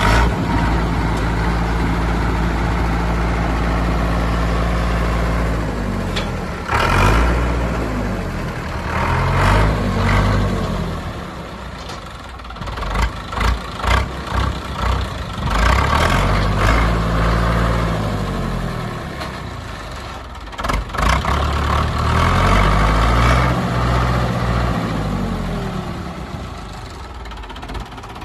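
Zetor 6340 tractor's diesel engine running, steady at first, then revved up and let fall back four times. A few sharp clunks come between the revs.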